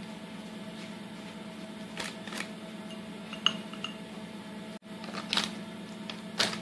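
Pastry brush dipped in a glass of beaten egg and dabbed onto dough, with a few light clinks and taps. The loudest clink, about three and a half seconds in, has a short glassy ring, all over a steady low hum.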